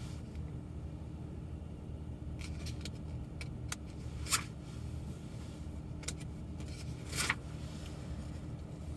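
Steady low hum of a car heard inside the cabin, with several brief rustles and clicks as someone searches through things, the loudest about four and a half and seven seconds in.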